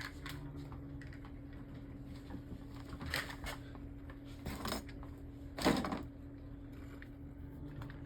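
Beyblade spinning top on its ball tip, spinning with a steady low hum and clacking sharply a few times, loudest near the six-second mark.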